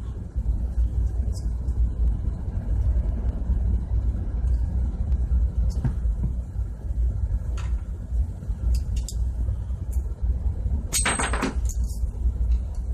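Steady low rumble of ship's engine-room machinery, with a few light clicks of metal parts being handled and one short loud scrape about eleven seconds in.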